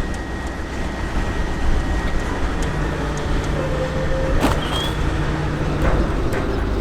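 M3 amphibious bridging vehicles' engines running with a steady low rumble. A low steady hum joins about three seconds in, and a few sharp clicks come halfway through.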